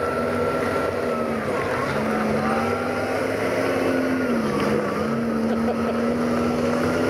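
VW Beetle autocross cars' air-cooled flat-four engines running at low revs as they drive slowly in a line. The engine note holds steady and dips briefly twice, about two seconds in and again about four and a half seconds in.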